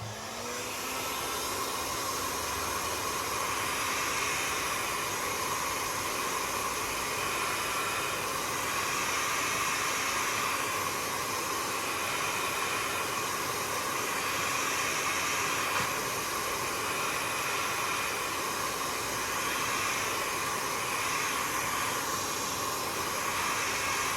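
Hot-air heat gun blowing steadily, its fan motor spinning up right at the start and then holding an even pitch, warming the phone's back glass so the adhesive will stick.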